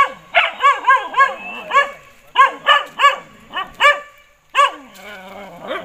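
A dog barking over and over: about a dozen barks in quick runs of two to four, with short pauses between the runs.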